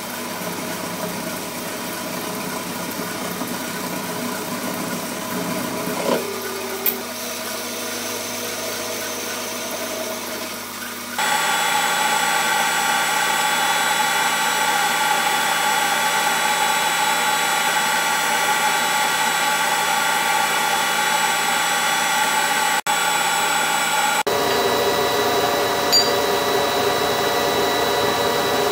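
Metal lathe running with a drill bit boring into a spinning stainless steel bar, with a couple of short louder scrapes about six seconds in. About eleven seconds in the sound cuts to a louder, steady electric machine hum with several steady tones, which changes again to a different steady hum near the end.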